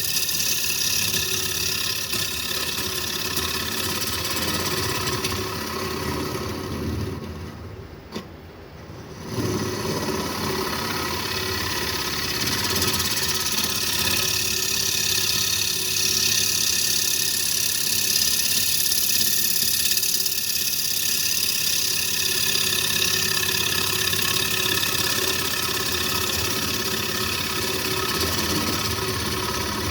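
Wood lathe spinning a yellow cedar and walnut bowl blank while a carbide-tipped tool cuts the inside: a steady motor hum with a hiss of cutting over it. It drops away briefly about eight seconds in, with a single click, then picks up again and runs steadily.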